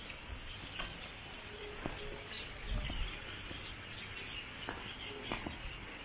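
Small birds giving short, high chirps again and again over a steady background hiss, with a soft low thump near the middle.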